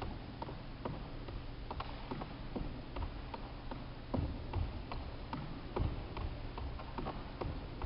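Shoe landings of single-leg hops on a wooden sports-hall floor: a run of light taps, about two a second and slightly uneven, over a steady low hum.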